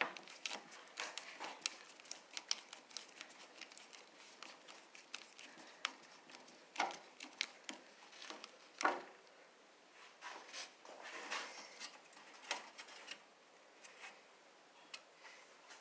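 Faint, irregular small clicks and scrapes of a screwdriver turning screws out of a table saw part, with a couple of louder knocks about seven and nine seconds in.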